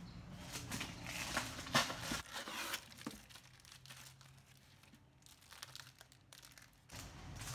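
Plastic wrap and foam packing sheets crinkling and rustling as they are pulled from a cardboard box. The rustling is busiest and loudest in the first three seconds, then thins to faint, scattered crinkles.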